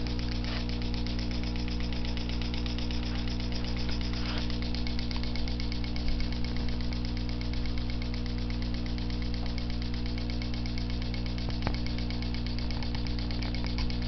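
A small home-built model steam engine of Elmer's 'Fancy' design running steadily, with a fast, even ticking from its strokes over a steady hum.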